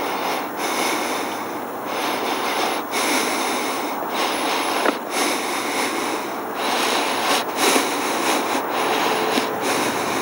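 A person breathing hard and fast, in rushing breaths that come about once a second.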